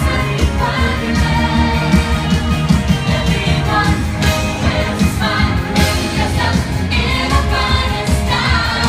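Parade music playing from the passing float: a pop-style song with singing over a heavy, steady bass line.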